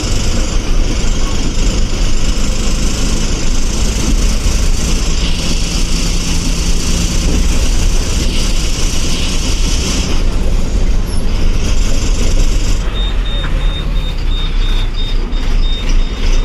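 Eicher bus diesel engine running with road and wind noise, heard from inside the driver's cabin; the hiss rises and falls as the bus drives on. Near the end a high-pitched intermittent beep starts.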